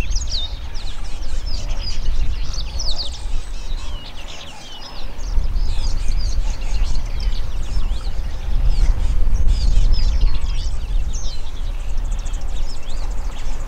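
Many birds chirping and trilling in quick high calls throughout, over a strong, uneven low rumble.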